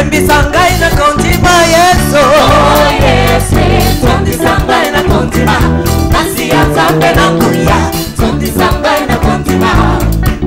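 Upbeat gospel band music with singing over a drum kit and a strong bass line.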